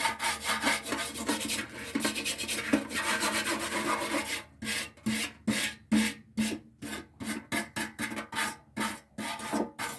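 Softened paint being scrubbed off a Honda XR250 motorcycle fuel tank by hand in rubbing strokes, as part of chemical paint stripping. Fast, continuous scrubbing for about the first four seconds, then separate strokes about three a second.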